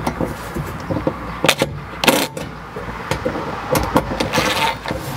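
Cordless driver with a hex bit running in short bursts to snug up 1/4-20 button-head bolts into serrated flange nuts, with several sharp clicks and knocks from the bit and the panel hardware.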